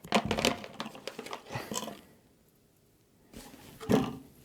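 Handling noise as a small measurement microphone is unpacked: packaging rustling and short clicks and knocks, a pause, then a brief burst of handling again near the end.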